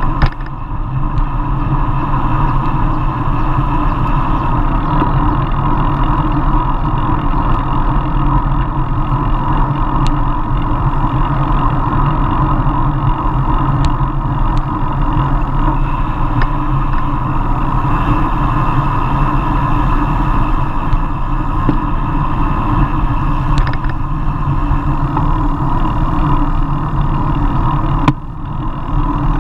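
Steady wind and road noise on a camera mounted on the handlebars of a road bike riding in a race bunch. It briefly drops about a second before the end.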